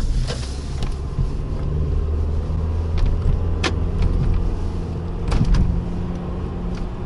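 Car driving, with a steady low engine and road hum and a few sharp clicks, the sharpest about halfway through.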